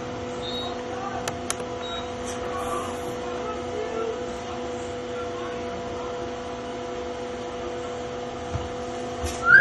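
A steady mechanical hum made of several held tones, with a few faint sharp clicks in the first couple of seconds.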